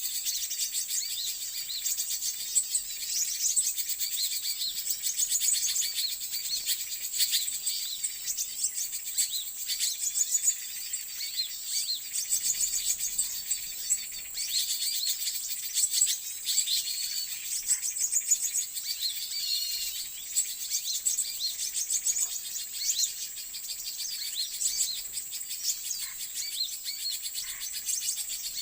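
Dense, continuous twittering of many small birds, thin high chirps typical of white-eyes (pleci), over a steady high insect drone.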